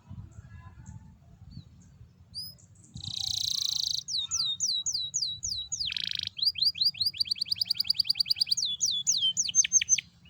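Domestic canary singing. After about three seconds of near quiet comes a harsh buzzy note, then a run of quick downward-sweeping whistles, a second short buzz and a long, fast trill of repeated notes. It ends with a few deeper downward sweeps.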